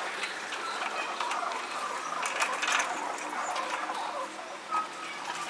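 Rock pigeons pecking seed off a concrete ledge, a dense run of rapid taps and clicks with scuffling, sped up to double speed.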